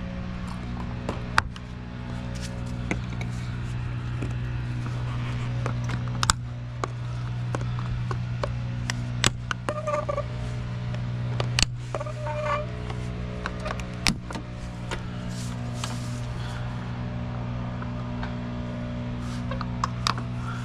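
Background music over steady low tones, with sharp clicks and knocks every few seconds.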